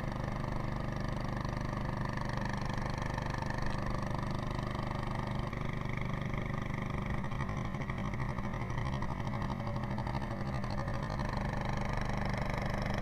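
Small boat motor running steadily, a constant low hum that holds its pitch throughout.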